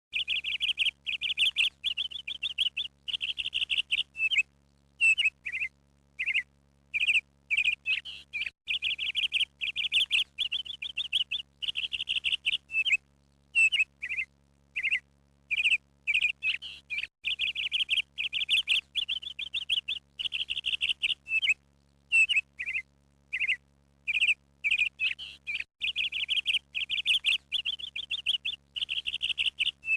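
A bird chirping in quick buzzy trills and short single chirps, coming in runs of about a second with brief pauses between them, over a faint steady hum.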